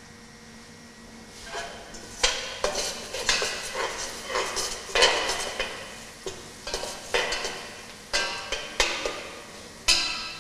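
A metal spoon stirring and scraping around a stainless steel pot in quick, irregular strokes, starting about a second and a half in, as spices are mixed into tomato and pepper paste frying with a light sizzle.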